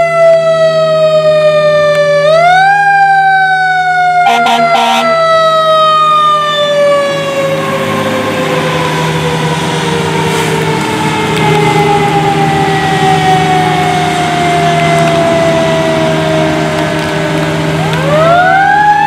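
Fire engine's mechanical siren winding up quickly, then slowly coasting down in pitch, wound up again about two seconds in and near the end. A short horn blast sounds about four seconds in.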